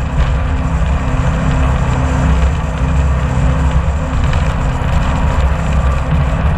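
Jet boat running at speed: a steady, loud engine drone under a continuous rushing noise of wind and water spray.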